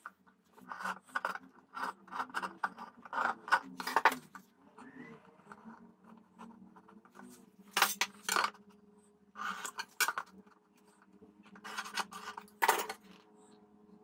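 Metal parts and hand tools clinking, knocking and scraping as they are handled at a workbench, in irregular clusters of sharp knocks with short pauses between, over a faint steady hum.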